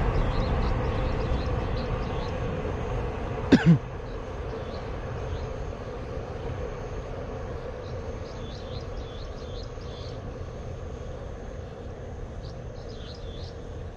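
Low rumble of a passing train, fading away. A sharp double knock about three and a half seconds in, and small birds chirping faintly in the second half.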